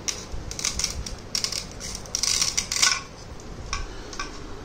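Plastic toy pizza pieces, toy knife and toy plate clattering and scraping as they are handled, with a louder stretch of clatter from about two to three seconds in.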